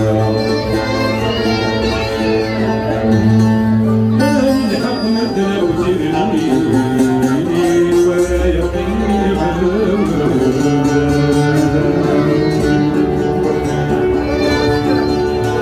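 Live band playing an instrumental passage: an oud plucked with a pick alongside a bowed violin, over steady low sustained notes.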